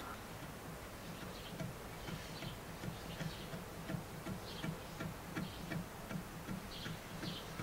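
A flat spreader worked back and forth through wet wood glue on a wooden board makes a soft, rhythmic scraping and smearing, about two to three strokes a second, with faint bird chirps behind.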